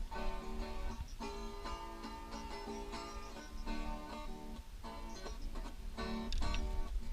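Background music of plucked acoustic guitar, with a steady low rumble underneath.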